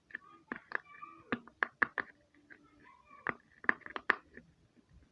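Hard-shell Pop It fidget being pressed and handled: irregular sharp plastic clicks and pops, about a dozen, with short squeaks in between.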